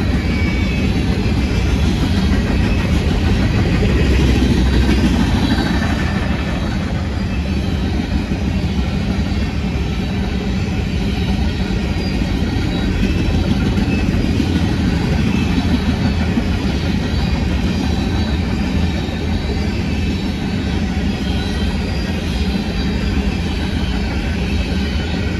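Freight cars rolling past on the track: a steady, loud rumble of steel wheels on the rails.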